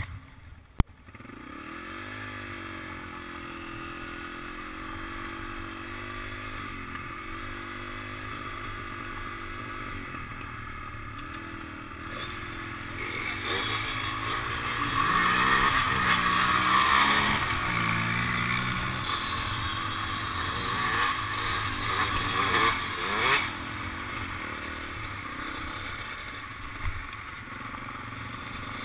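Dirt bike engine running at a low, fairly even speed. For about ten seconds midway the engine noise gets louder, with the pitch rising and falling, while a quad rides close alongside. A single sharp knock comes just under a second in.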